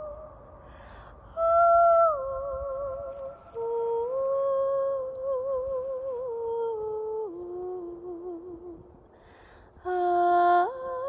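A woman's voice singing wordless held notes with a wide, wavering vibrato, in long phrases that step down in pitch, with audible breaths between them. An artificial reverb has been added to the voice.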